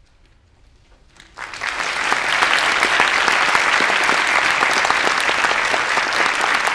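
Audience applauding, breaking out suddenly about a second in after a brief hush and then holding steady as a dense clatter of many hands clapping.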